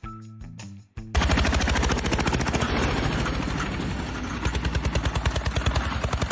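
Brief music, then about a second in a loud, rapid, steady mechanical pulsing starts abruptly, many beats a second, like a small engine running hard.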